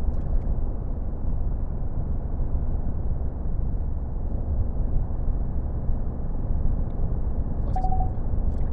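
The 2021 AT4's 3.0-litre Duramax diesel running with a steady low rumble while the diesel particulate filter is regenerating. A short, higher tone sounds briefly about eight seconds in.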